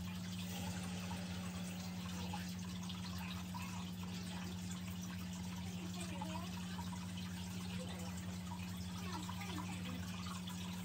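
Steady low hum under a constant hiss of background noise, with faint indistinct sounds about halfway through.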